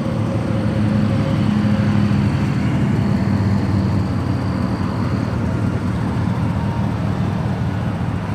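A 2002 Chevrolet Silverado pickup's engine idling steadily, with no revving.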